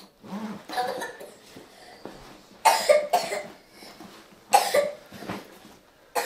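A person coughing in short, sharp bursts: two close together about two and a half seconds in, another a second and a half later, and one more near the end.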